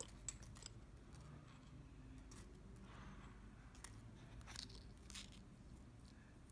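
Near silence, with a few faint clicks and light rustles from fingers handling nylon fishing line, a plastic float and small hooks.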